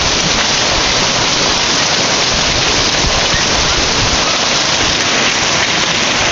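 Heavy rain from a sudden downpour falling steadily onto pavement and grass, a loud, even hiss with no let-up.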